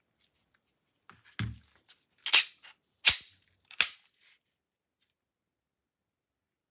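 A Glock 17C magazine set down on a table with a low knock, then three sharp mechanical clicks about a second apart as the Glock 17C pistol is picked up and handled.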